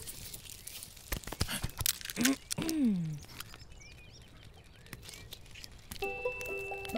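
Animated-film soundtrack: a run of quick small clicks and taps, then a short vocal sound that slides down in pitch about two and a half seconds in. Music notes come in about six seconds in.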